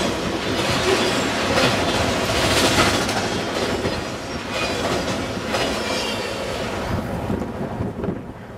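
Freight cars rolling past at close range, steel wheels clattering over the rail joints, with a faint high wheel squeal in the middle. The sound drops away near the end as the last cars clear the crossing.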